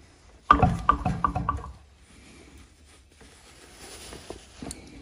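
Metal tools clinking and scraping against the engine's governor shaft area as a new oil seal is worked onto the shaft. It is a sudden burst of rapid clinks, about five a second, starting about half a second in and lasting a little over a second, followed by a few faint clicks near the end.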